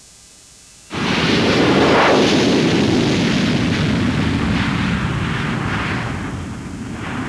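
F-4 Phantom jet engines at full power for a carrier launch: a loud, steady roar that starts suddenly about a second in, dips slightly near the end and then builds again.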